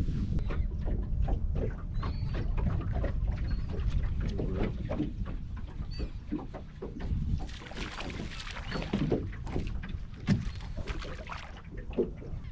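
Handling noise on a small fishing boat: a steady low rumble with scattered knocks and clicks, and a short hiss about eight seconds in.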